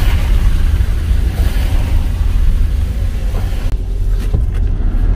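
Road noise inside a moving van: a steady low rumble of engine and tyres with a hiss over it, the hiss falling away about three and a half seconds in.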